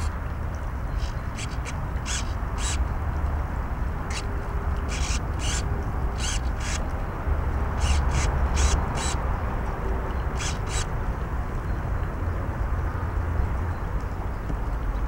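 Radio-control servos on a model steam launch buzzing in short bursts, in clusters through the first eleven seconds, as the rudder and the forward-neutral-reverse control are worked from the transmitter. A steady low rumble lies under them.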